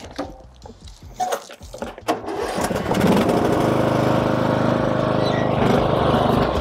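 Riding mower's 19.5 hp Briggs & Stratton engine starting: a brief crank about two seconds in, then it catches, revs up and settles into steady running on its newly fitted replacement carburetor.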